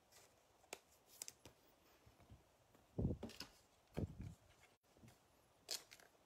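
Faint handling of trading cards being slipped into plastic sleeves: light rustles and clicks, with two soft thumps about three and four seconds in.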